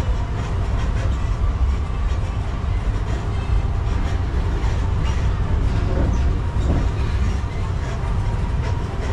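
Steady low rumble of a moving road tram, its engine and wheels, heard from on board.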